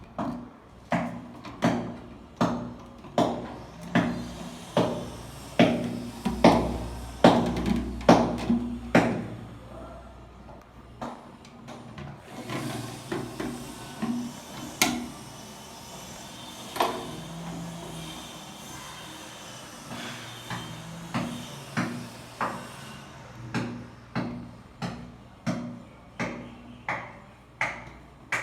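Repeated sharp knocks, about one and a half a second, like light tapping strikes on a hard part. About twelve seconds in a steady hiss takes over for roughly ten seconds, with only scattered knocks, and then the regular knocking comes back.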